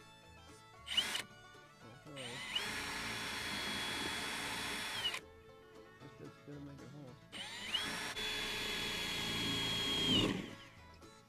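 Power drill boring a hole through a pickup's sheet-steel firewall in two runs. Each run spins up with a rising whine, holds a steady pitch for about three seconds, then winds down.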